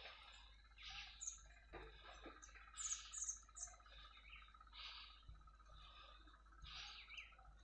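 Faint chirping of small birds: short, high calls every second or so, over a faint steady tone.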